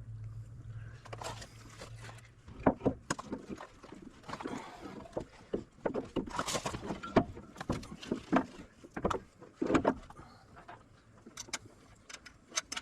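Irregular metal knocks, clanks and clicks as a new strut assembly is pushed up into the strut tower and its first mounting nut is started on the threaded stud. A low steady hum runs for the first two seconds or so.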